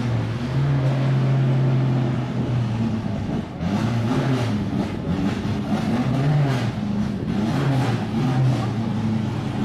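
A car engine running, its pitch rising and falling a little as it is revved gently.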